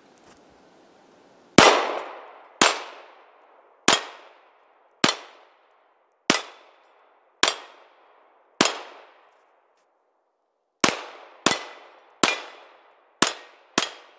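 Grand Power X-Calibur 9mm pistol firing twelve shots: seven at a steady pace of about one a second, a pause of about two seconds, then five quicker shots, each shot trailing off in a short echo.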